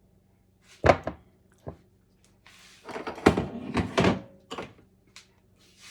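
A kitchen utensil knocking and scraping against a bowl and baking dish as the thick chicken and cottage cheese mixture is scooped into the dish. There are two sharp knocks, then a busier run of scraping and thunks, then a few light clicks.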